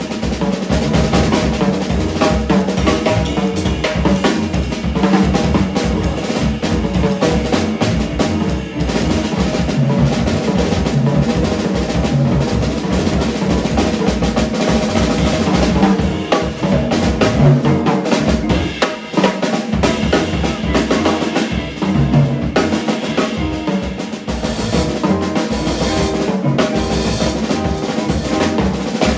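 Jazz drum kit played hard with sticks: a dense run of strokes on the drums and cymbals, with two brief lulls about two-thirds of the way through.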